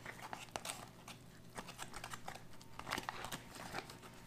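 Plastic spoon stirring and scraping rehydrated freeze-dried chicken and rice inside a ration pouch, with the pouch crinkling: faint, irregular clicks and scrapes.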